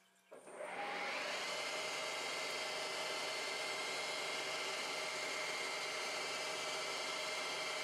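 Lathe spindle starting about half a second in, its whine rising in pitch and settling within a second, then running steadily with flood coolant spraying onto the work held in the collet.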